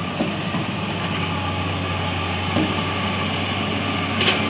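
Komatsu crawler excavator's diesel engine running with a steady low hum while the boom and arm are hydraulically folded in from full reach. A few short knocks come through, the sharpest about four seconds in.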